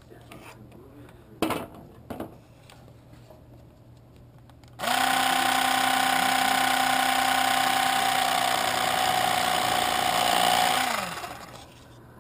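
Great Planes hinge slotting tool's small electric motor running steadily for about six seconds as it cuts a hinge slot into balsa, then falling in pitch as it winds down. Two knocks from handling the tool come before it starts.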